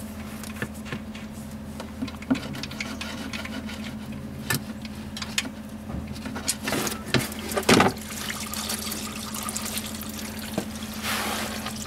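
Oil pan drain plug of a Ford F-150 EcoBoost being turned out by hand, with a few clicks, then warm engine oil gushing out and splashing into a drain pan. The loudest splashing comes about two thirds of the way in, and a steady pouring stream takes over near the end.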